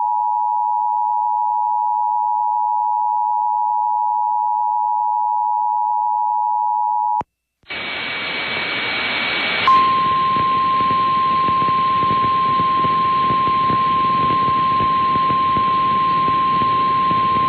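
Emergency Alert System two-tone attention signal, a steady two-pitched tone that cuts off abruptly about seven seconds in. Static hiss from a radio relay follows, and about two seconds later a single steady warning alarm tone sounds over it, the alert for a tornado warning.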